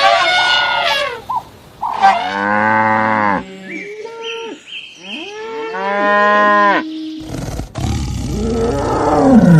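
Cattle mooing: a string of separate calls, with a long moo about two seconds in, a shorter one around six seconds, and a loud moo that falls in pitch near the end.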